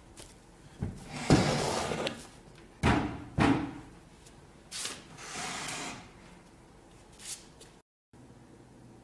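Unfinished pine chest of drawers being moved and handled: a long scraping slide of wood, two sharp wooden knocks, then a second, quieter slide.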